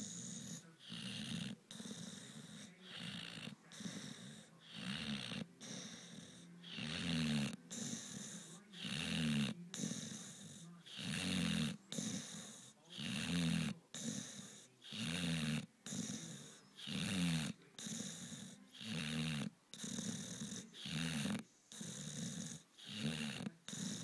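Dog snoring in deep sleep: a low, pitched snore alternating with a higher, hissing wheeze, about one breath cycle every two seconds.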